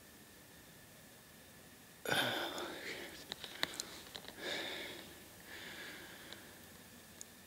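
A person whispering close to the microphone in three short spurts, the first about two seconds in and the loudest, with a few small clicks between the first two.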